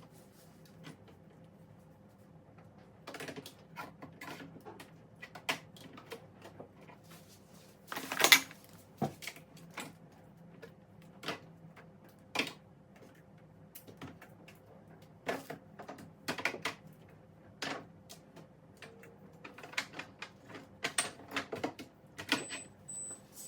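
Scattered clicks and knocks of jars, bottles and plastic containers being handled, moved about and set down while a fridge is cleared out, with one louder knock about eight seconds in, over a faint steady hum.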